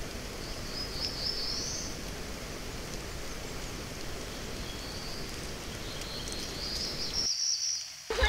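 Outdoor ambience: a steady hiss of background noise with a high-pitched call about a second in and again from about five seconds to seven. Near the end the sound cuts off abruptly.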